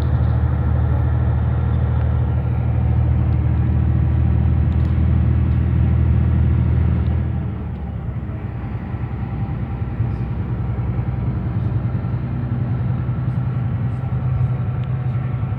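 Volvo D13C 13-litre inline-six diesel of a Volvo B13R coach running under way, a steady low drone. About halfway through, the engine note eases off and drops in level, then runs on steadily at the lower level.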